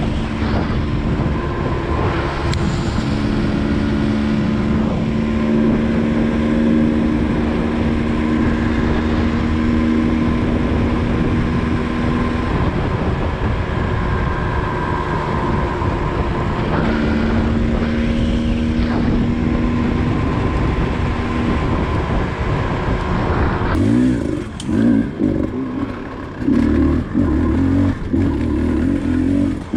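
Enduro dirt-bike engine running at a steady pitch, then in the last few seconds the throttle opens and closes in short, choppy bursts with the revs rising and falling.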